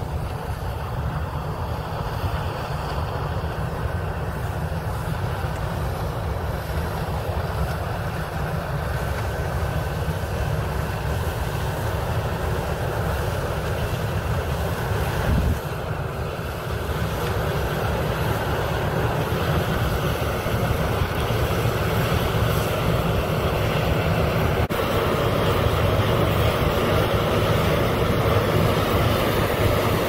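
New Holland combine harvester running under load while it picks up and threshes canola swaths: a steady machine rumble that grows louder toward the end as it nears.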